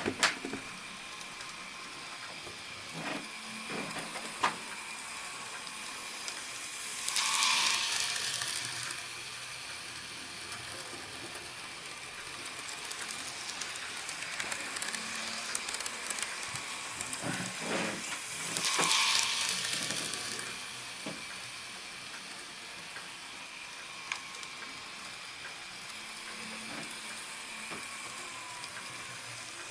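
N gauge DCC model train running on its track, a steady small-motor whine and wheel hiss with a few light clicks. It grows louder twice, about every 11 to 12 seconds, as the train comes round the loop and passes close by.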